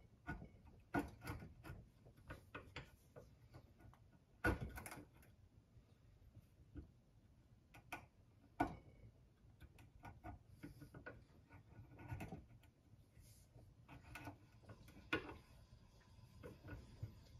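Faint, scattered metallic clicks and knocks from an adjustable wrench turning a thread-cutting tap by hand into a metal pipe clamped in a bench vise. The sharpest knocks come about a second in, near four and a half seconds, near eight and a half and near fifteen seconds.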